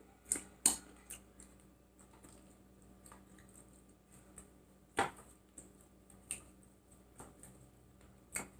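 Quiet eating sounds: a scattered series of short clicks and taps, the loudest about five seconds in.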